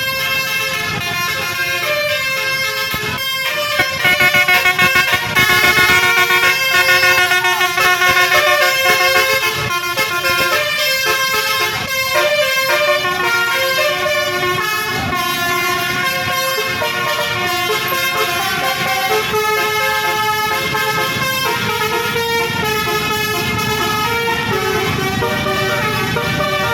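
Telolet bus horn, a set of multi-note air horns, playing a melody of stepped tones, loudest from about four to nine seconds in.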